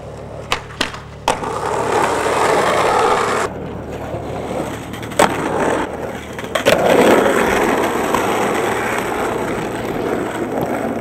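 Skateboard wheels rolling over rough asphalt, with a few sharp clacks of the board in the first second or so and again about five to seven seconds in.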